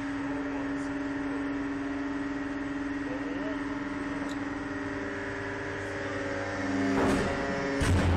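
Steady machine hum with a strong low droning tone and its overtones, broken by two short noisy bumps near the end.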